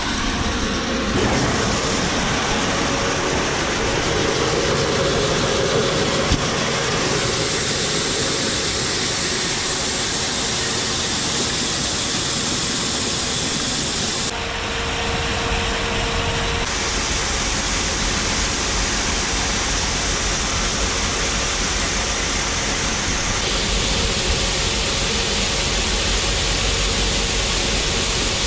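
Steady rushing noise of heavy farm machinery at work, with a low rumble underneath; its tone changes abruptly several times.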